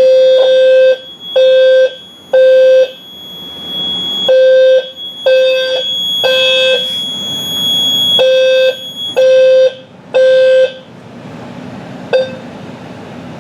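Fire alarm horn sounding the temporal-three evacuation pattern: three half-second blasts, then a pause, repeated, after a smoke detector has been tripped with test smoke. A steady high tone runs under the first nine seconds or so, and the horns stop about ten and a half seconds in, followed by a single click.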